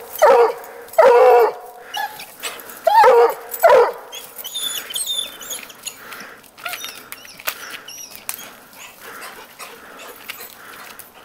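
Coonhound baying at a treed cat: four loud bays in the first four seconds. Then softer high whines and the scrabbling of its paws against the tree trunk.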